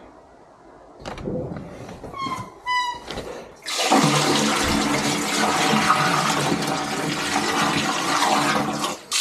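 Water gushing into a campervan service point's waste-water drain, starting suddenly about four seconds in and running steadily, after a few knocks and a short descending squeak.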